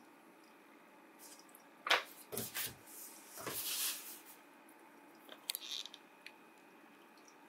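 A plastic button on the Asakuki ultrasonic diffuser's base clicks about two seconds in. Soft rustling and a brief hiss follow as the hand moves away, then a few faint ticks.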